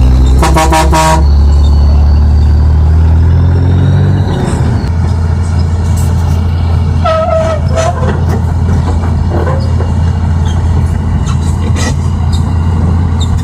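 Heavy truck engine running with a steady low drone; a short quick burst of horn toots sounds about half a second in, and the engine note drops about four and a half seconds in.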